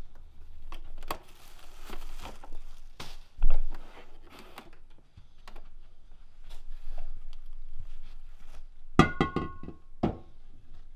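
Household objects being moved and handled: scattered scrapes, rustles and knocks, with a heavy thud about three and a half seconds in. Near the end comes a quick clatter of hard objects, some of which ring briefly.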